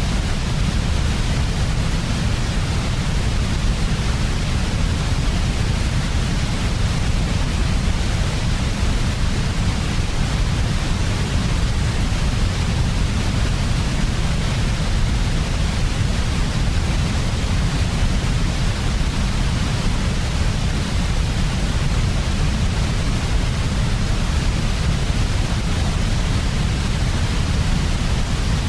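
Steady white noise for baby sleep: a constant, unchanging hiss with a heavy deep rumble underneath.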